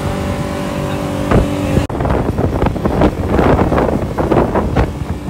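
Water taxi motorboat running fast, its engine a steady drone. About two seconds in the sound cuts to a rough rush of wind buffeting the microphone, with water and engine noise beneath.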